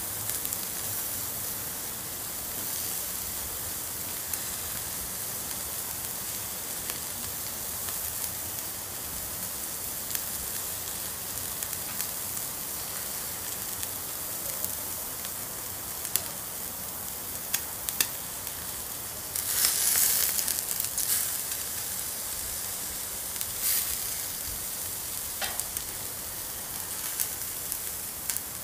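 Meat sizzling over hot charcoal: a steady hiss with scattered sharp pops and crackles, and a louder burst of sizzling about twenty seconds in.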